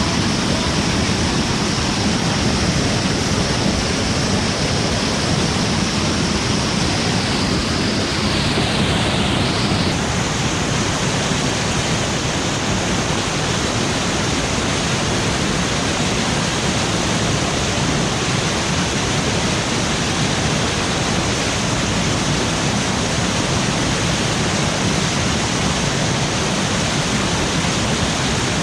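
Whitewater rushing steadily through and under a log jam, close by and loud, a continuous full hiss with no break.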